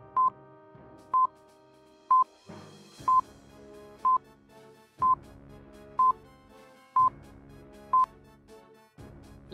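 Countdown timer beeping: a short, high beep once a second, nine times, over soft background music.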